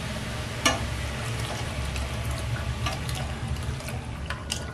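Milk being poured from a bowl into a steel kadhai of fried grated carrot, running and splashing steadily, with a single sharp knock a little under a second in.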